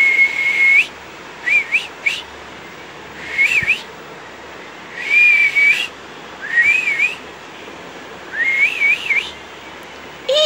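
A person whistling to the baby: a held note, then about five short warbling phrases that slide up and down, with pauses between them.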